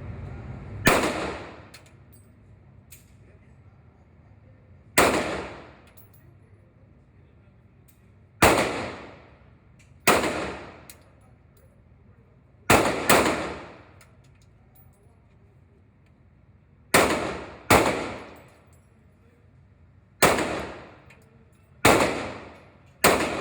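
Gunshots on an indoor shooting range: about eleven single shots at uneven intervals, some in quick pairs, each followed by a short echoing decay.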